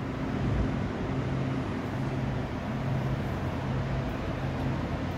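Steady mechanical running noise, like a motor or engine, with a low hum that comes and goes.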